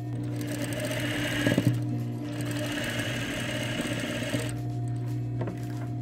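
Table-mounted sewing machine stitching a straight seam through folded fabric, running for about four seconds, then stopping.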